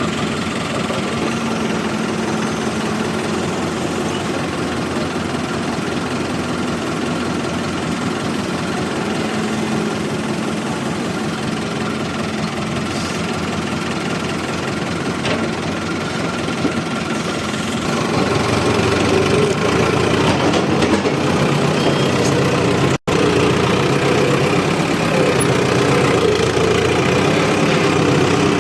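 Heavy diesel engine running steadily. About two-thirds of the way through it grows louder and deeper, as under heavier load, and it cuts out for an instant a few seconds later.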